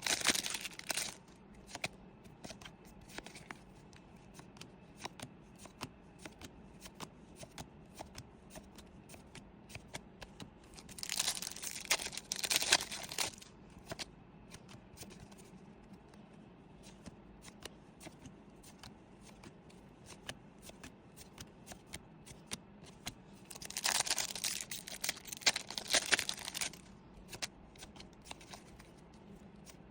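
Pokémon booster pack foil wrappers crinkling and tearing open twice, once about a third of the way through and again past three-quarters, each for a couple of seconds. In between come long stretches of soft clicks from trading cards being handled and flipped through.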